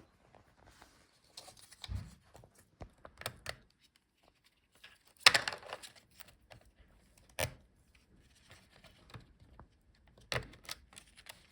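Small plastic clicks and rustling as a laptop's speaker modules and their cable are pried out of the lower chassis, with a louder scraping rustle about five seconds in.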